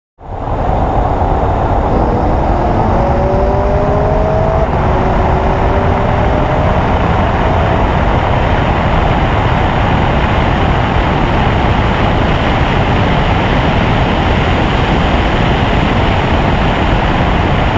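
Camaro SS V8 at full throttle in a roll race, heard from inside the cabin. The engine note climbs slowly through a gear over the first several seconds, under loud, steady wind and road noise.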